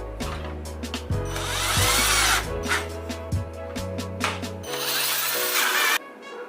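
Cordless electric screwdriver running in two bursts of about a second each, driving in the screws of an air conditioner's terminal cover plate, with a whine that shifts in pitch as the screws tighten.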